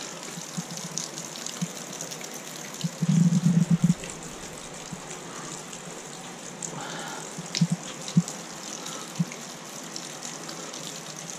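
Water of a partly frozen waterfall pouring and splashing steadily down the inside of its ice column onto the ice at its base. A short run of low thumps comes about three seconds in, with a few scattered knocks later.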